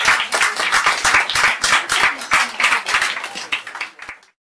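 Small audience applauding, the clapping fading away near the end.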